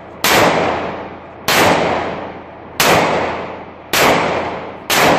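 30 bore (7.62×25mm Tokarev) pistol fired into the air five times, about one shot every 1.2 seconds. Each loud crack is followed by an echo that fades over about a second.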